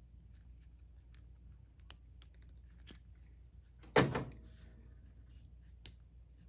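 Pliers squeezing a plastic insulation-piercing splice connector shut on a wire: a few small clicks, then a loud sharp snap about four seconds in as the connector latches and its blade cuts through the insulation, and another small click near the end.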